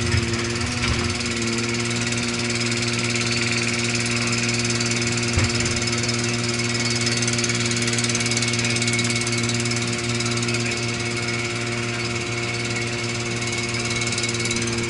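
Diesel engine of a Eurodig Dumpy 800 running steadily at an even speed as the machine works its grab, with a brief knock near the start and another about five seconds in.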